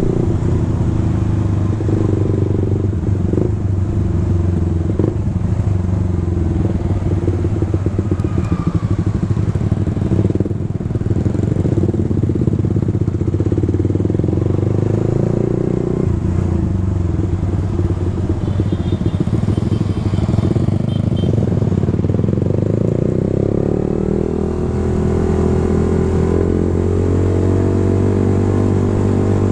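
Suzuki GSX-R150's single-cylinder engine running as the motorcycle is ridden, its pitch rising and falling with the throttle and climbing steadily over the last few seconds.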